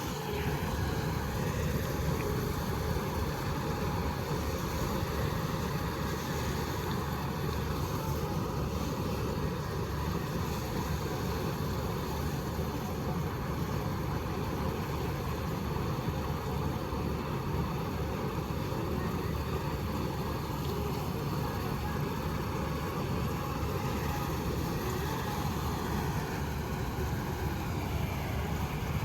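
Avtar 6500 combine harvester running steadily while harvesting a mung bean crop: a constant engine and threshing-machinery din.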